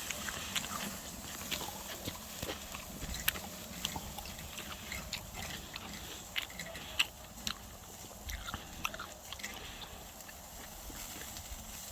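A person chewing grilled pork with the mouth close to the microphone, with irregular small clicks and smacks.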